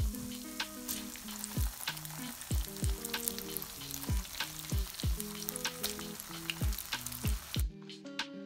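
Vegetable oil sizzling around cheese fritters frying in a pan, with the fritters being turned with a spatula. Background music with a steady deep beat plays over it. The sizzle cuts off suddenly near the end while the music carries on.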